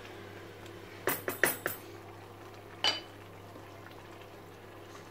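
A wooden spoon knocked against the rim of a stone-coated frying pan, four quick clacks, then one sharper clack with a brief ring about three seconds in as the spoon is taken out of the pan.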